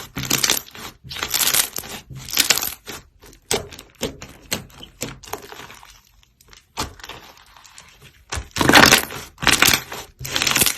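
Slime being squished and pressed, giving a series of crackly, popping bursts about once a second. The bursts thin to scattered small pops in the middle, and loud squishes return near the end.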